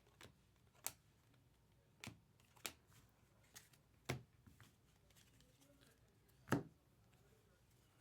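Trading cards being handled and flipped through one at a time: scattered soft flicks and taps, the loudest about six and a half seconds in.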